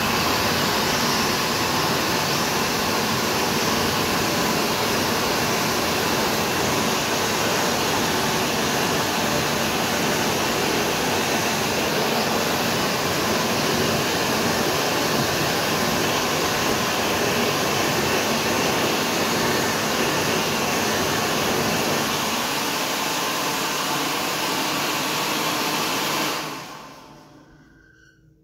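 ASi Autobeam MK3 automatic hand dryer blowing, a steady loud rush of air. Near the end it cuts out and winds down over a couple of seconds.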